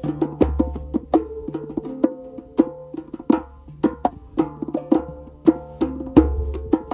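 Hand pan in D minor ringing out held notes over a steady run of hand-drum strikes from conga and djembe, several beats a second, in an improvised percussion groove.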